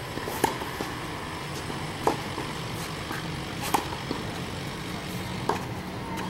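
Tennis rally on a clay court: four sharp racket-on-ball strikes, about one every second and a half to two seconds, with fainter ball bounces in between. A steady low hum runs underneath.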